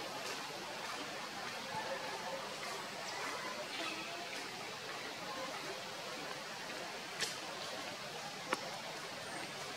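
Steady outdoor background hiss, with two sharp clicks about seven and eight and a half seconds in.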